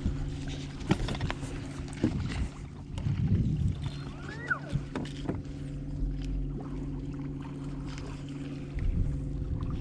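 Bass boat's electric trolling motor humming steadily, with scattered clicks and knocks of tackle and gear on the boat, and a brief squeak about halfway through.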